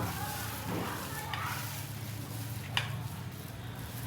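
Food frying in hot oil in a pan, a soft even sizzle, with a sharp clink of a utensil about three quarters of the way through.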